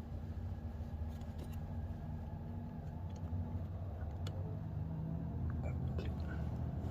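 A steady low hum with a few faint metallic clicks, from hand tools on the motorcycle's footpeg bracket as a bolt is worked in from behind in a cramped spot.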